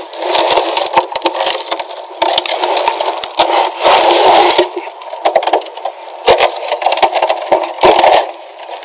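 Cured fiberglass stringer being pulled free of its former: a dense run of crackling and snapping as the laminate separates and flexes.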